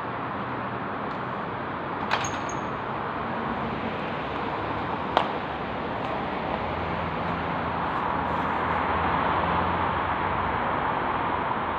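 Steady city street traffic noise that grows a little louder in the second half, with two sharp clicks about two and five seconds in.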